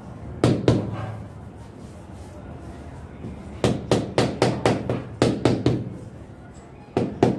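Rubber mallet knocking a large floor tile down into its mortar bed to seat and level it. There are two knocks, then a quick run of about eight, then two more near the end.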